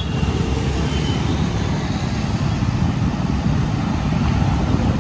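Wind rushing over the microphone, with road and traffic noise, while riding a two-wheeler through traffic: a loud, steady rush with a deep rumble.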